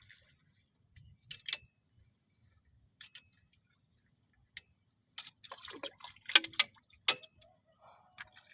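Irregular sharp clicks and knocks, a few early and then a dense flurry about five to seven seconds in, some with a duller low thud.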